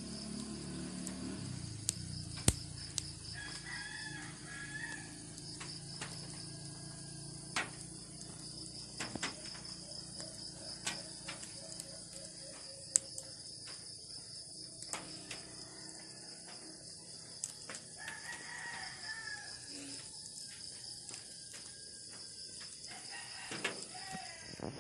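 Open wood fire crackling under a cooking pot, with scattered sharp pops, over a steady high pulsing chirr. A rooster crows faintly twice, once early and again past the middle.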